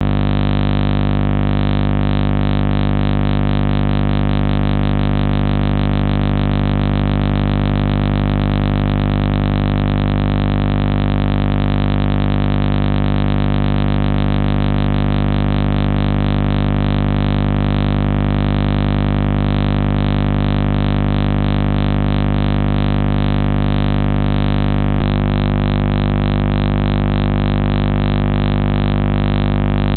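A loud, unchanging electronic drone made of many steady tones, with a slight change in tone about 25 seconds in.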